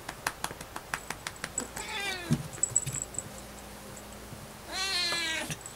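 Siamese cat meowing twice, a short falling meow and then a longer, louder one, while a hand smacks its rump in a quick run of pats, several a second.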